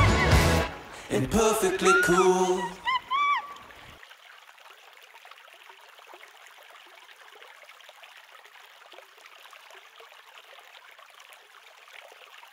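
Shallow river water trickling over rocks, faint and steady. Over the first few seconds music ends and a few short voice sounds are heard.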